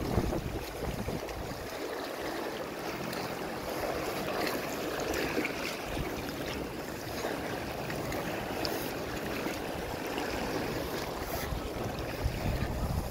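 Steady wash of small sea waves over a rocky reef shore, with wind rumbling on the microphone.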